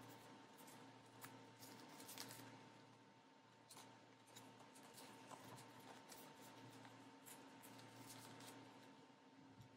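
Near silence with faint rustles and light taps of photocards and plastic binder sleeves being handled, over a faint steady hum.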